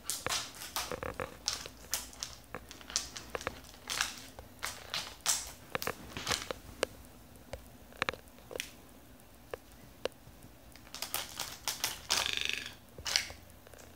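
A toco toucan's bill knocking and picking at a plastic TV remote control, heard as irregular sharp clicks and taps. A short rustle comes near the end.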